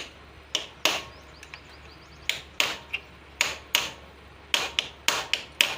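Hand tools clicking and knocking on metal engine parts during motorcycle engine timing work: about a dozen sharp clicks at irregular spacing, several in quick pairs.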